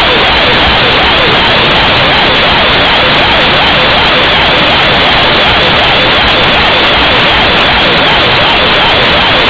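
Navy ship's compressed-air compressor running, loud and steady.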